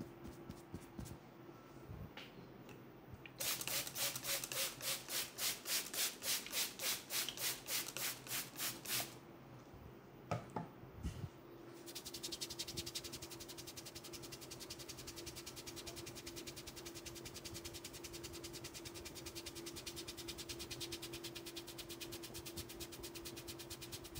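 Hands rubbing and scrubbing through hair on the scalp during a head massage: rhythmic rasping strokes, about two or three a second, for several seconds, then after a short pause a faster, steady rubbing that keeps on.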